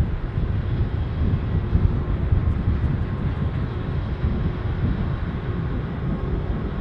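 Wind buffeting the microphone in a heavy, gusty low rumble, over the steady distant noise of a Qantas Airbus A380's four jet engines as it rolls along the runway.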